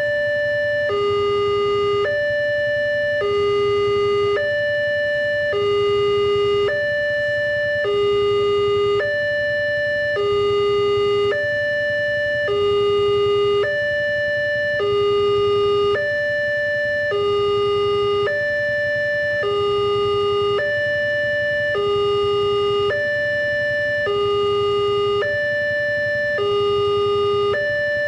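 Electronic two-tone level-crossing warning alarm repeating a steady high-low pattern, about one high-low pair every one and a half seconds. It sounds while the crossing is closed, with the barriers down and the red lamps flashing for an approaching train.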